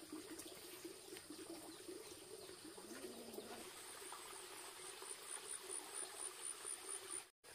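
Faint rural ambience: an insect chirping in a high, regular pulse about four times a second from about halfway in, over a low, wavering drone. The sound cuts out briefly near the end.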